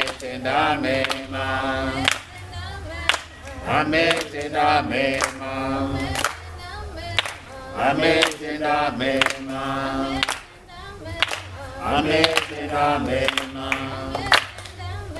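A congregation sings a worship chorus together, clapping along about once a second.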